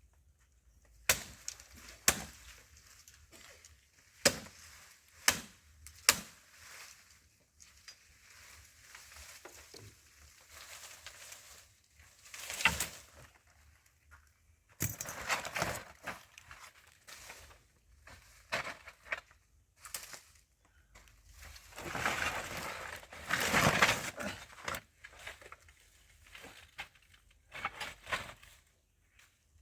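Wood being knocked apart and broken in the demolition of a pit latrine: a run of sharp single blows, then longer spells of crunching and breaking around the middle and near the end.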